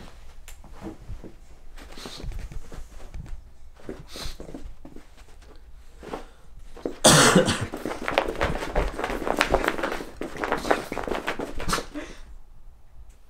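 Pugs moving about on carpet: scattered light paw steps and small clicks, with a loud, short, breathy huff about seven seconds in, followed by a busier patch of quick clicks.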